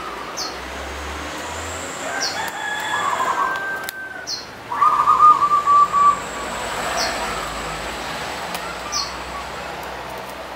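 Caged zebra dove (perkutut) singing: a fast run of staccato cooing notes that trails into a held note about five seconds in, after a fainter call a couple of seconds earlier. Sharp high chirps from another small bird repeat about every two seconds behind it.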